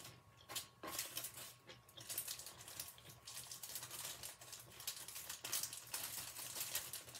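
Thin plastic bag crinkling in the hands as cooked rice is squeezed out of it: a run of quick, irregular crackles, sparse at first and busier after about two seconds.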